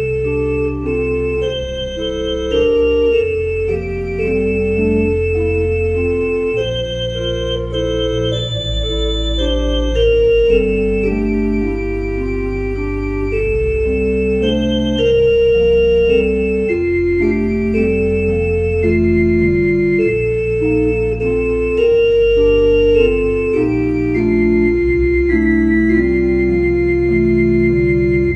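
Church organ playing a slow piece: held chords with moving inner parts over long, low sustained bass notes.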